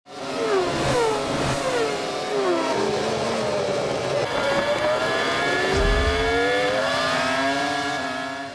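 Race-car engine sound effects: several cars whizzing past in quick falling swoops, then an engine revving up in a long rising whine, with a low boom about six seconds in.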